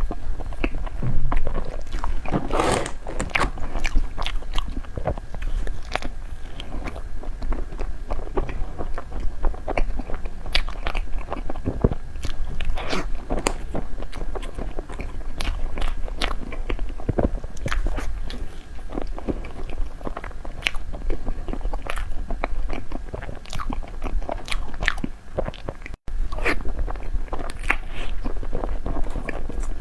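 Close-miked eating: repeated bites and chewing of snow-skin mochi desserts, with crisp crunching clicks scattered irregularly through the mouthfuls.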